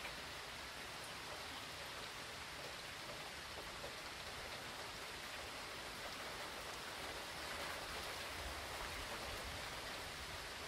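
Steady hurricane rain falling, an even hiss that swells a little louder, with more low rumble, for a couple of seconds about eight seconds in.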